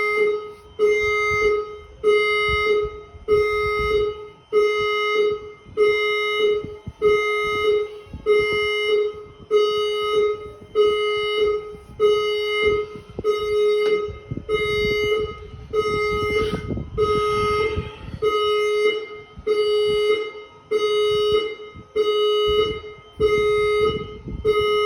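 Alarm horn sounding a low, buzzy beep about once a second, over and over. A burst of rumbling noise comes in about two-thirds of the way through.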